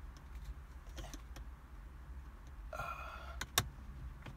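Faint clicks of a screwdriver working a screw in the ignition switch assembly under the steering column, with a brief rustle about three seconds in and one sharper click just after it.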